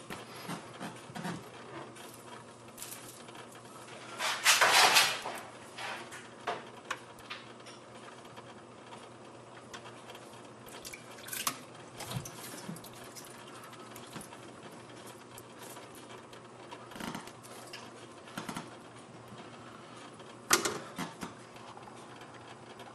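Aquarium filter running with a steady hum and water trickling and dripping. A few brief, louder splashes break through, the loudest about four to five seconds in and another near the end.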